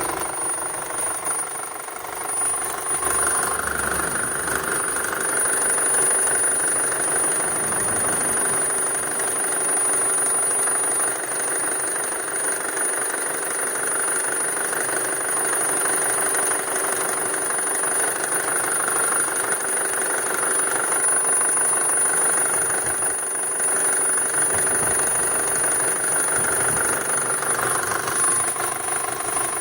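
2006 VW Touran 2.0 FSI four-cylinder petrol engine idling steadily, with a steady high-pitched whistle running over it: the beep or whistle that the owner is showing as a fault.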